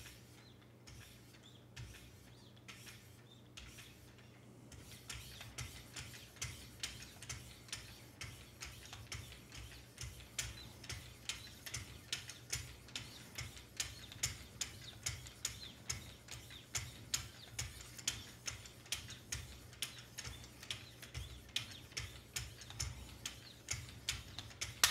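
30-micron diamond lapping film on Wicked Edge sharpening paddles stroked along a clamped knife blade, away from the edge only. Each stroke gives a light tick, about two a second, faint at first and clearer from about five seconds in.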